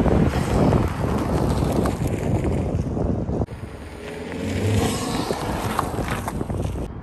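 A Honda Accord's turbocharged 1.5-litre four-cylinder, fitted with an AEM cold air intake, driving past under throttle, heard through heavy wind noise on the microphone. The level drops suddenly about halfway through, then the engine note rises and grows louder as the car passes close by.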